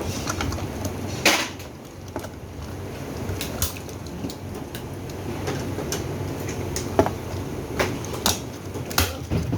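Irregular knocks and clicks of parts being handled, spaced a second or more apart, over a steady low hum.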